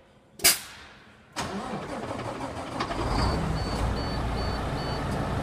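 A sharp knock, then a 2012 International ProStar's diesel engine cranking on the starter from about a second and a half in. It catches about three seconds in and settles into a steady idle. Five short high beeps sound as it catches.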